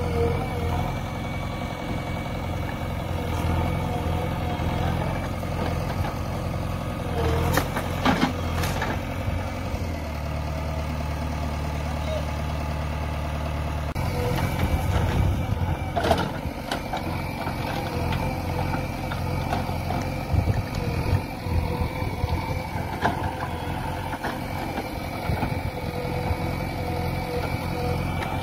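JCB backhoe loader's diesel engine running steadily while the backhoe arm digs, with a few sharp knocks around 8 and 16 seconds in.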